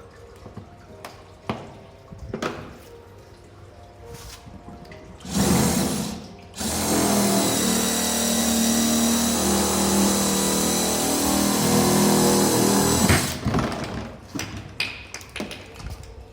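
Electric drill boring through a plastic storage case for a valve fitting: a short burst about five seconds in, then a steady run with a high whine for about six and a half seconds, before stopping. Clicks and knocks of handling the case and tool come before and after.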